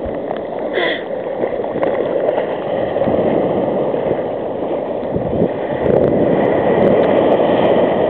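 Shallow sea surf foaming and sloshing right at the microphone, with the splashing of legs wading through it: a steady wash of water noise that grows a little louder about six seconds in.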